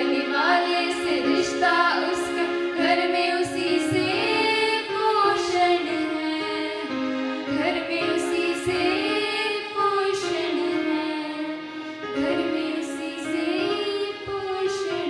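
Young female voices singing a Hindi song with music, holding and sliding between sung notes.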